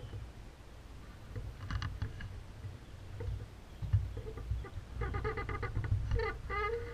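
Short pitched, pulsed animal calls: a few about two seconds in, then a denser series in the last two seconds. They sit over a low rumble of handling noise from the bow-mounted camera.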